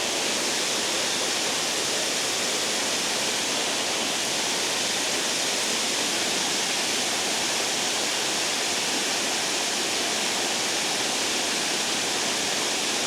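Water rushing over a spillway, a steady unbroken rush that stays even throughout.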